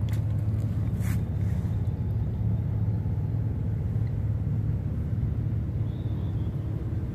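An engine running steadily with a low, even drone. There are two short crackles in the first second or so.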